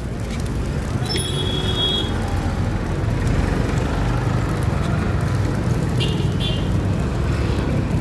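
Street traffic noise: a steady low rumble of passing vehicles, with brief high-pitched tones about a second in and again about six seconds in.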